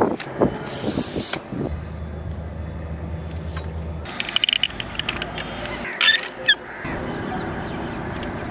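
Plastic clicks and a short sliding rasp from a tripod's leg locks and legs being handled, followed by a low steady hum for about two seconds and then a few bird calls.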